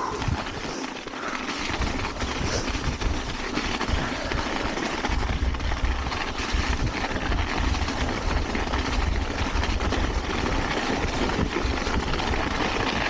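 Mountain bike riding downhill: steady wind rush on the microphone and rumble of the tyres over the trail, with gusty low buffeting.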